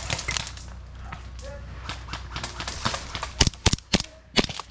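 Airsoft guns firing: about five sharp cracks close together in the last second and a half, after a quieter stretch.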